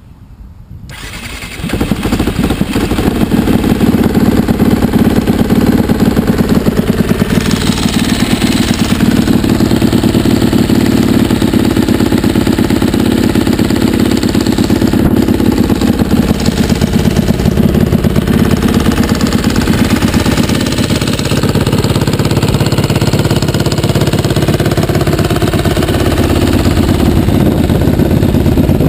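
2007 Aprilia SXV 450's V-twin engine starts about a second in and then runs steadily at idle through its stock exhaust.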